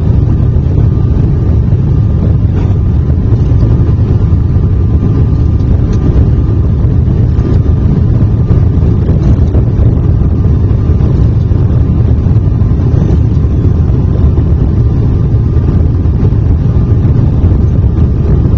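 Airliner cabin noise in flight: a loud, steady low rumble of the engines and rushing air, heard from inside the passenger cabin, with a faint steady whine above it.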